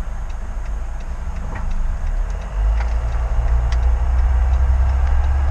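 Car cabin rumble from the engine and road, growing louder about halfway through as the car picks up speed. Over it a turn-signal indicator ticks steadily, about three ticks a second.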